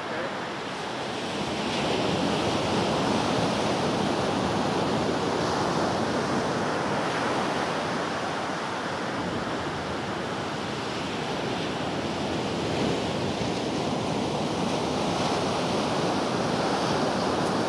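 Ocean surf washing steadily onto a sandy beach.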